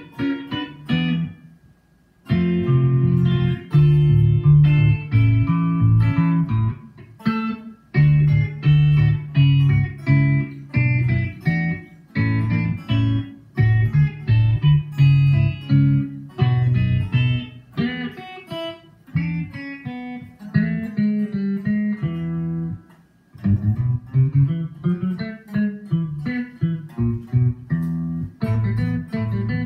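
Amplified hollow-body electric guitar playing a tune, with low bass notes under chords and a melody line. The playing breaks off briefly about two seconds in and again near the 23-second mark.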